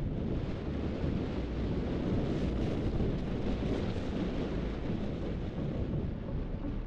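Wind buffeting the microphone of a camera carried down a ski run at speed: a steady low rush, mixed with the hiss of skis sliding over packed, groomed snow.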